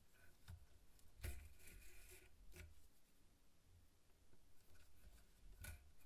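Faint hand saddle stitching of leather: thread drawn through the stitching holes with a soft rasp, the longest pull lasting about a second from just over a second in, and a few short ticks of the needles and fingers on the leather.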